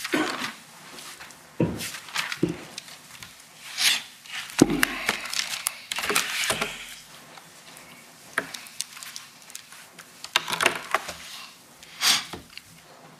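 Sheets of paper being shuffled and handled on a lectern, close to its microphone. Irregular rustles and crinkles come with a few dull knocks and thuds.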